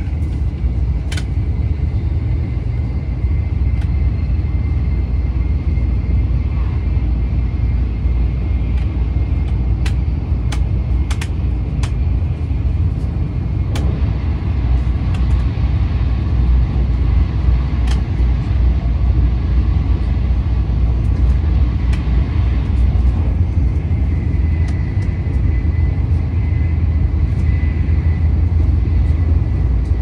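Steady low rumble of a Tokaido Shinkansen train running, heard from inside the passenger cabin. A few faint clicks come through it, and a faint high whine joins in during the last few seconds.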